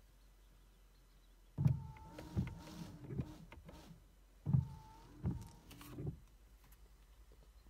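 BMW E90's windscreen washer and wipers, run twice: each time a sudden start with a short electric whine from the washer pump, then the wiper arms knocking as they sweep the glass clean.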